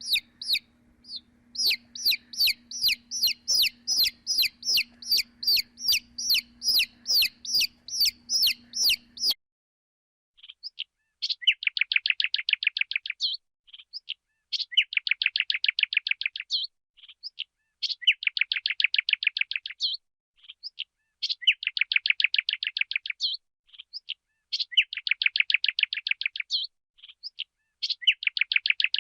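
Sparrows chirping: first a run of single high chirps, two or three a second, over a low steady hum. After a short break, rapid chattering trills come in bouts of about two seconds, repeated with brief pauses.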